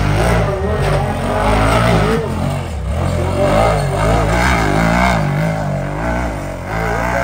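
Side-by-side UTV engine revving hard and repeatedly, its pitch rising and falling as the throttle is worked on a trail climb.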